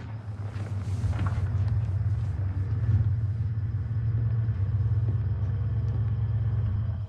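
Deep, steady rumble that swells in the first second, holds, and cuts off abruptly at the end.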